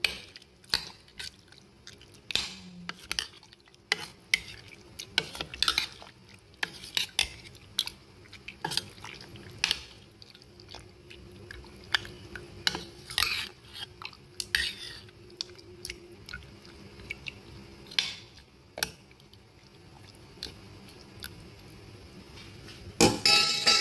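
Metal spoon stirring raw pork pieces in soy-sauce marinade in a metal pot: irregular clinks and scrapes of the spoon against the pot, with a louder clatter near the end.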